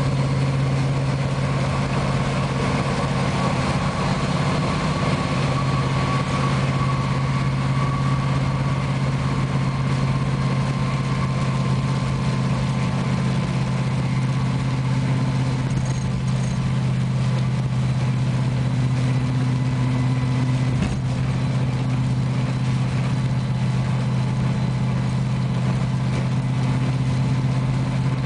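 Hot rod's engine droning steadily while cruising at highway speed, heard from inside the car, over a steady hiss of rain and wet-road noise.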